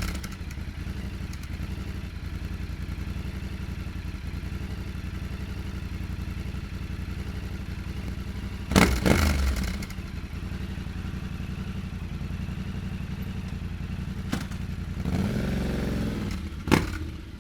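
Yamaha Ténéré 700's parallel-twin engine idling steadily through aftermarket AliExpress headers. There is a short throttle blip about nine seconds in and a longer rev near the end.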